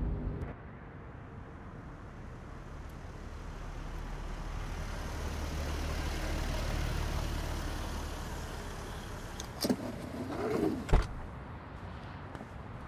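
Volkswagen SUV driving up with a low engine rumble and road noise that swells and then dies away as it comes to a stop. Near the end comes a sharp click and then a thump: the driver's door being unlatched and opened.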